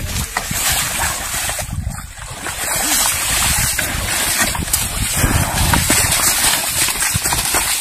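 Steady rushing noise of wind buffeting the microphone, with water splashing as water buffalo wade through shallow floodwater.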